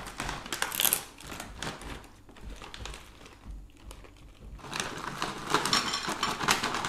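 Foil-lined plastic snack packet rustling and crinkling as it is handled and opened, then, from about five seconds in, louder crackling as fried savoury snack pieces are tipped out of the packet onto a plate.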